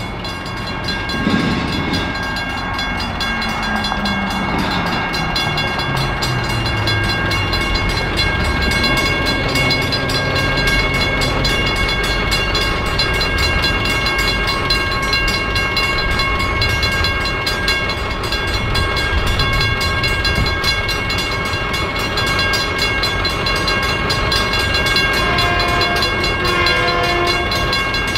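Railroad crossing warning bell ringing rapidly and steadily while the crossing gates are down, over a low rumble. Near the end an approaching train's horn starts to sound in short blasts.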